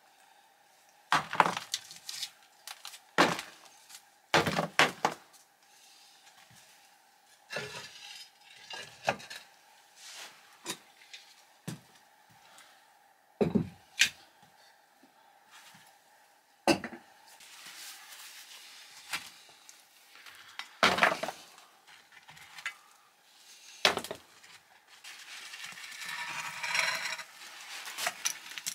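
Clanks and knocks of cast-iron hob rings and a pot being handled on an old brick stove top, with broken brick rattling. The knocks come one at a time, a few seconds apart, with a scraping rattle near the end and a faint steady tone underneath.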